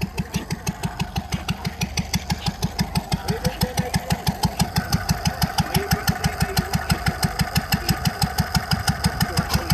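An engine running steadily at a slow idle, with even firing beats of about five a second.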